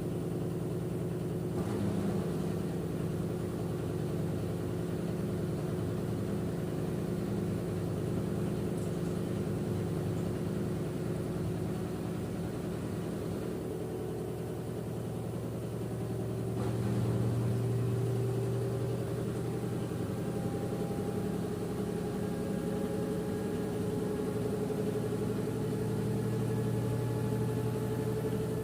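LG F10B8MD front-loading washing machine in its final spin on the Cotton 800 rpm programme: a steady motor-and-drum hum with whining tones, which begin slowly rising in pitch about halfway through as the spin speed builds.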